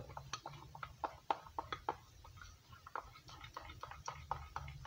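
A spoon clicking and tapping against a ceramic bowl while stirring thick powdered-sugar glaze, an irregular run of light clicks several times a second.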